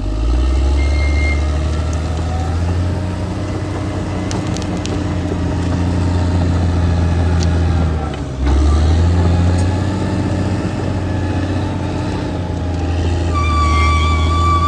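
Caterpillar D6R XL bulldozer's diesel engine running with a deep, steady drone. It drops out for an instant about eight seconds in and picks straight back up.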